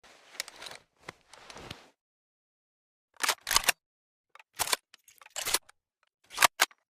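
Bolt action of a Springfield M1903A1 rifle being handled and worked: faint metallic clicks and scrapes at first, then several louder pairs of sharp clacks spread over the last four seconds.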